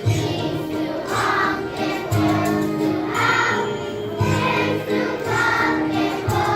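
Group of children singing a song together as a choir, with instrumental backing.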